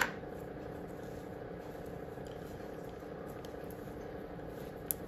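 Steady low mechanical hum, with a sharp click right at the start, a few faint ticks of handling, and a small click near the end.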